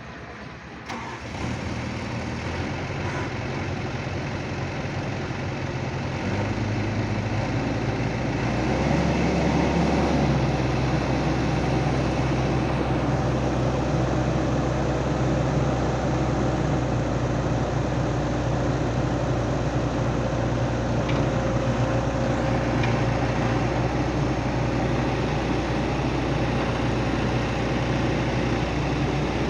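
Excavator diesel engine starting about a second in, then stepping up in engine speed twice, around six and nine seconds in, and running steadily at the higher speed.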